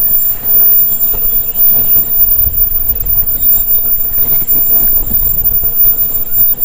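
Semi-automatic sanitary pad making machine running, its rollers and chain drives turning with a continuous mechanical rattle and clatter.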